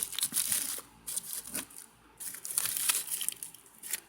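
Crinkly firework packaging being handled and moved, crackling in three short bursts with brief pauses between.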